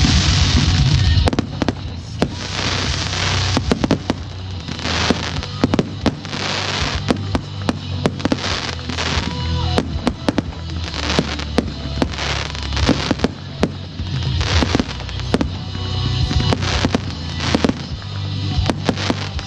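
Fireworks display: many sharp bangs and crackles at irregular spacing, some in quick clusters, over music playing in the background.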